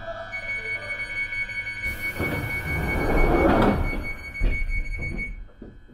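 London Underground Northern Line 1995 Stock train's doors closing. A high, steady door-closing warning tone sounds while the sliding doors rush shut. There is a thump about four and a half seconds in.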